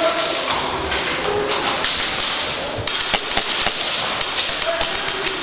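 Airsoft guns firing in rapid, irregular clicks and taps, with a louder knock about three seconds in.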